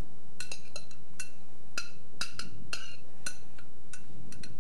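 Glass mixing bowl clinking about a dozen times at an irregular pace, each clink with the same short glassy ring, as filling is tipped and tapped out of it.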